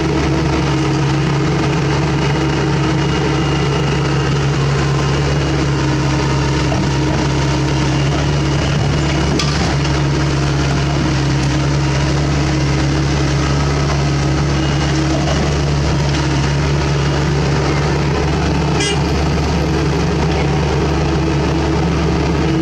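Diesel engine of a Sany SY75 mini excavator running steadily at close range, with a couple of brief knocks about 9 and 19 seconds in.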